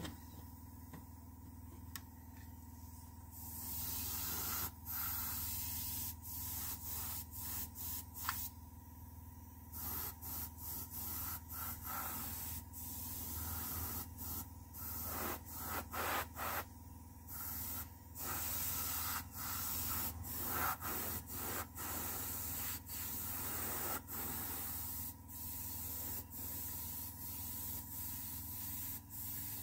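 Airbrush spraying paint in short hissing bursts, breaking off briefly every half second to a second as the trigger is worked. The spraying starts about three seconds in.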